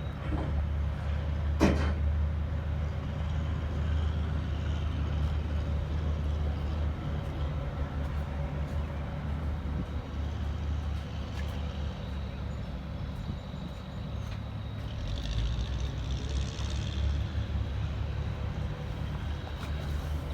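Heavy vehicle engine running steadily, a low drone, with a single sharp click about two seconds in.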